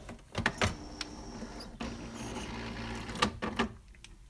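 A couple of clicks, then a Nivona bean-to-cup coffee machine's electric motor runs steadily for about three seconds and stops.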